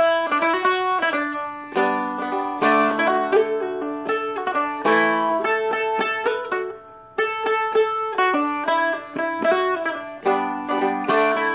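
Seagull Merlin M4, a four-string dulcimer-style guitar, flatpicked through a melody solo: quick single notes mixed with strummed chords, with a short pause about six and a half seconds in before the playing picks up again.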